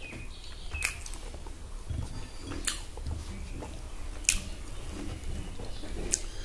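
A person chewing a mouthful of rice and pork gravy close to the microphone, with four sharp, wet mouth smacks spaced about one and a half to two seconds apart.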